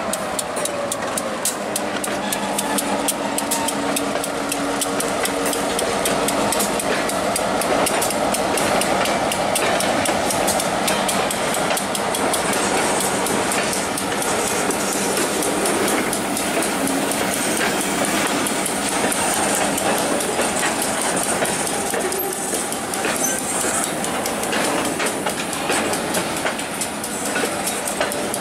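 Freight train of covered hopper cars rolling slowly past: a steady rumble of steel wheels on rail, with a rapid, continuous run of clicks and clanks as the wheels pass over the rail joints.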